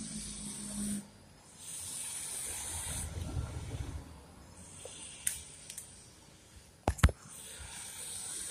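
Bath-time sounds of a wet Cavalier King Charles Spaniel being lathered by hand: a wet hiss that comes and goes, broken by a few sharp knocks, the loudest about seven seconds in.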